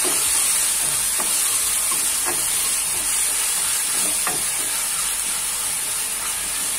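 Ginger-garlic paste and onions sizzling in hot oil in a kadai, stirred with a spatula that scrapes the pan about once a second.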